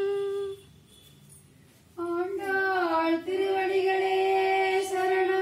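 Female voices singing a Tamil devotional mangalam song without accompaniment: a long held note fades out, then after a short pause a new phrase bends up and down and settles into another long held note.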